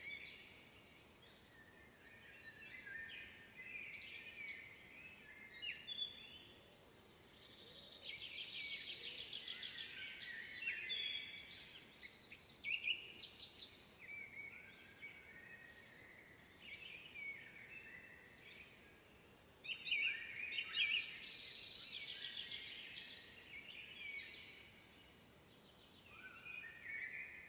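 Several wild songbirds singing over one another in a woodland chorus: repeated chirps and whistled phrases, with fast trills about a third of the way in and again past the middle.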